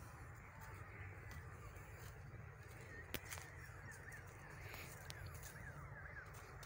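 Faint bird calls: a quick run of short chirps about three to five seconds in, over a faint steady outdoor background, with one sharp click just after three seconds.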